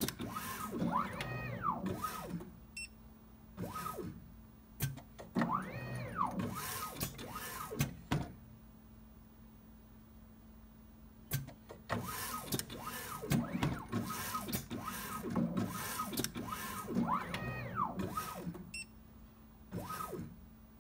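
Automated weighing robot's motorised axes and gripper working: motor whines that rise and fall in pitch in repeated moves, with clicks and clatter of the gripper and tubes, over a steady low hum. Near the middle the moves pause for a few seconds, leaving only the hum.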